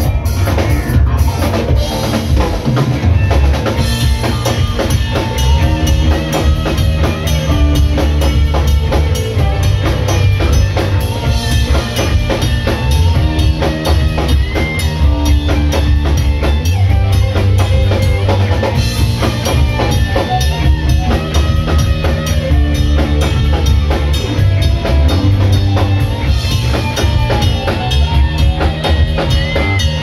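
Instrumental post-rock band playing live: a full drum kit with busy kick and snare hits drives the music, under electric guitar, bass guitar and keyboard.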